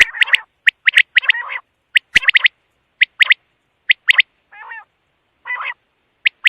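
Quail calling: short, sharp notes in quick clusters of two or three, repeated every second or so, with a few harsher, rasping calls in between.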